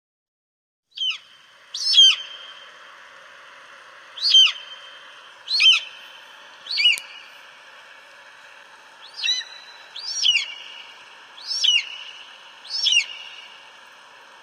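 Eagle calling: nine short, high cries, each sliding downward in pitch, repeated at irregular gaps of one to two seconds.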